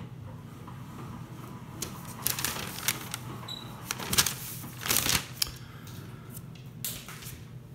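Scattered rustles and clicks of a smoke alarm and its paper instruction leaflet being handled, over a low steady hum.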